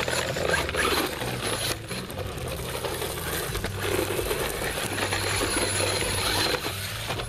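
Redcat Volcano EPX electric RC truck driving, its motor and drivetrain whirring, easing off briefly a little under two seconds in.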